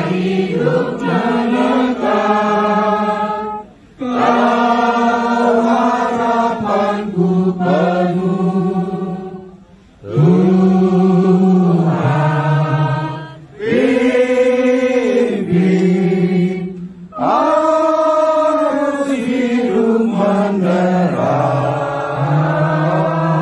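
A group of mourners singing an Indonesian Christian hymn together, unaccompanied, in long held phrases with short breaths between them.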